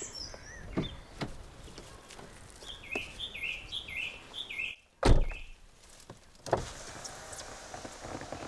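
A car door shut with a loud thud about five seconds in, followed by a second, softer thump a moment later. Just before, a bird chirps a quick run of about six short notes.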